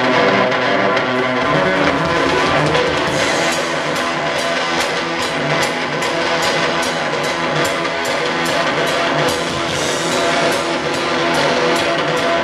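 Live rock band playing loudly, heard from the crowd. Held, ringing guitar notes are joined about three seconds in by a drum kit keeping a steady beat.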